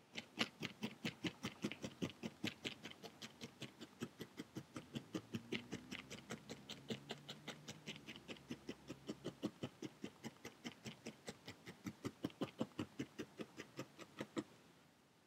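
Felting needle stabbing rapidly and repeatedly through a ball of core wool into a foam pad, a steady run of soft pokes about five a second, stopping shortly before the end. The wool is being compacted into a firm ball.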